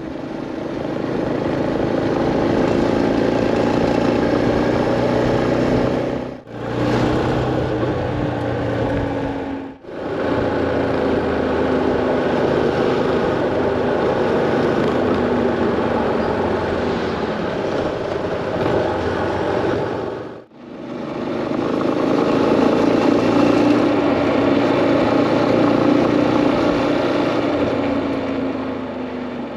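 Yamaha Serow 250's single-cylinder four-stroke engine running under way with road and wind noise, its pitch slowly rising and falling with speed and sinking over the last several seconds. The sound drops out briefly three times.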